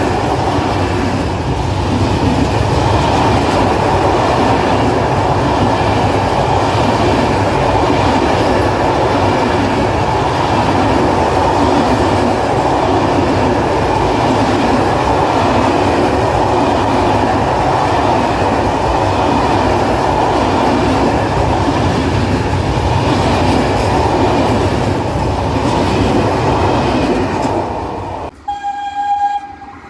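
Freight wagons of a long Italian goods train rolling past at close range, steady rumbling and clattering of wheels over the rail joints. The noise falls away suddenly as the last wagon clears, and a short high tone sounds near the end.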